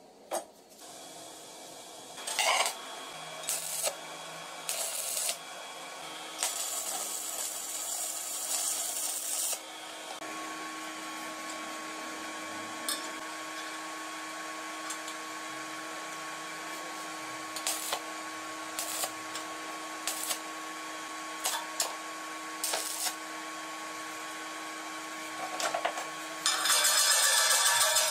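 Cut sheet-steel plates being shifted and fitted by hand on a steel workbench: short scrapes and clanks of metal on metal, over a steady hum. Two longer hissing stretches stand out, one of about three seconds early on and another starting near the end.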